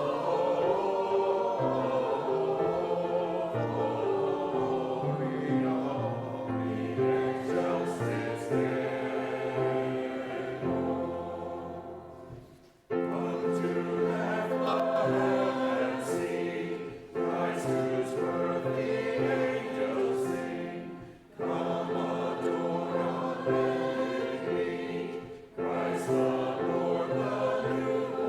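Congregation singing a Christmas carol from the hymnal, line by line, with short breaks between phrases.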